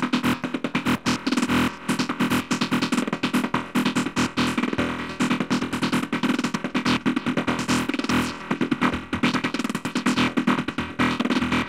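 Serum software synth playing a fast psytrance sequence of short, rapid-fire stuttering notes through a delay, while its band-pass filter cutoff is turned by hand.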